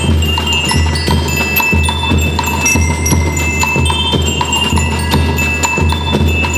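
School rhythm band playing: bell lyres ring out a melody of short bright notes over bass drum and snare drums keeping a steady beat.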